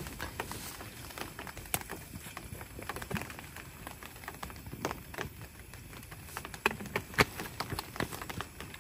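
Rain falling: scattered drops ticking irregularly, a few a second, over a soft hiss.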